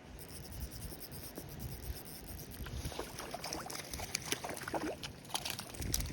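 Water splashing and clicking close to the microphone, a busy spell of sharp clicks and splashes in the second half, over a low rumble of wind on the microphone.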